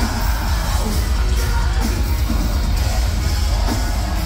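A deathcore band playing live, loud and continuous: distorted electric guitars and drums with a heavy low end.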